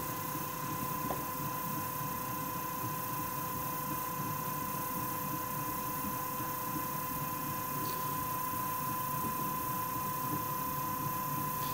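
Electric potter's wheel running at a constant speed: a steady hum with a thin, even high tone.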